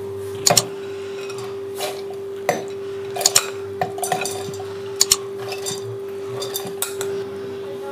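A metal spoon scraping and clinking against a glass bowl and a steel grinder jar as soaked urad dal is spooned across: scattered, irregular clinks.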